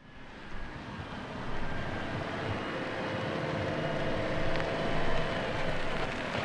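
Cars passing slowly, a steady rumble of engines and tyres. It fades in at the start and grows louder about a second and a half in.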